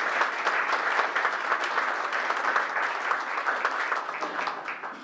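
Audience applauding, dense clapping from many hands that thins out and fades near the end.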